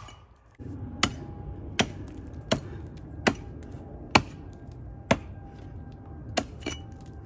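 A single-bit axe chopping into a tree trunk in quick, regular strokes: about eight sharp chops, roughly one every three-quarters of a second. The axe is cleaning up and reshaping the undercut notch for felling the tree.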